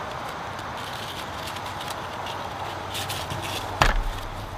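A cam lock strap buckle being handled on the beach cart: a few light clicks and one sharp knock near four seconds in, over a steady hiss.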